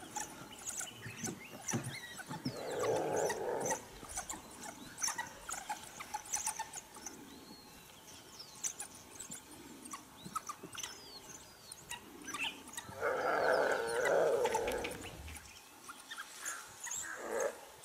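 African wild dogs at a fresh impala kill, giving short high-pitched squeaking twitters throughout. Twice, about three seconds in and again around thirteen seconds, a longer, louder animal cry rises over them.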